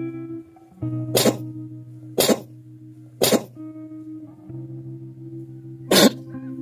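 Music with sustained pitched notes, cut through by four short, sharp noise bursts: three about a second apart, the fourth near the end.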